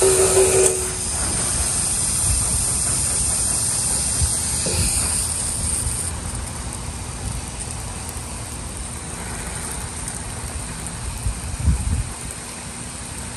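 Water spraying from a garden hose onto plants and soil, a steady hiss that gets quieter about six seconds in. There is a dull knock near the end.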